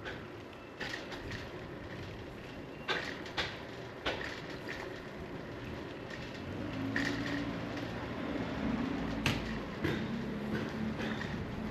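Riding noise of a bicycle on a paved street: a steady rumble broken by several sharp rattles and clicks. From about halfway, the low steady hum of a motor vehicle's engine joins in.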